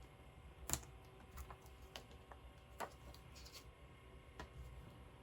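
Faint room hiss with about six short, scattered clicks and taps, the sharpest about a second in. These are small craft pieces being handled on a work table while enamel dots are placed on a scrapbook layout.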